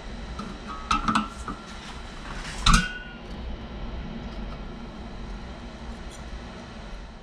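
Metal parts clanking as they are handled: a cluster of sharp metallic knocks with a short ring about a second in, and one louder clank near three seconds, over a steady low hum.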